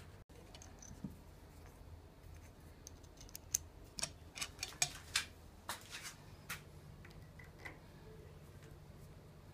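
Sharp metallic clicks and clinks, about ten in quick succession around the middle, from a T-handle tap wrench as its tap is swapped for a plug tap. A faint low hum runs underneath.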